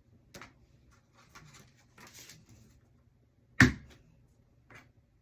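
A hand rubber stamp pressed down hard once, a sharp knock a little over three and a half seconds in, among light clicks and rustling of paper being handled.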